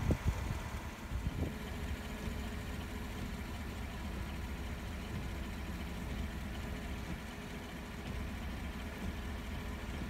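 A vehicle engine idling steadily, with a few brief low rumbles near the start.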